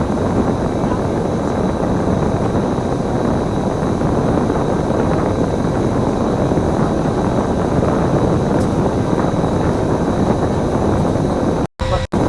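Steady engine and road noise of a running Kowloon Motor Bus bus. The sound cuts out briefly twice near the end.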